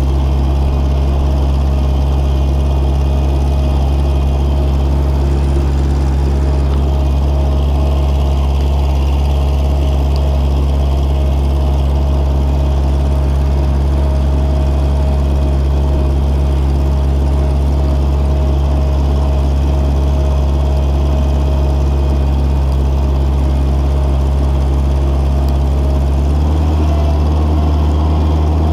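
Mobility Dipper 4x4 loader's engine running steadily as the machine drives along, with a thin steady whine above the low engine note. A couple of seconds before the end the engine note changes pitch.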